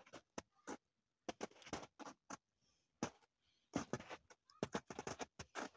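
Footsteps crunching in fresh snow: sneakers pressing into it in a string of short, uneven crunches, thickest in the second half.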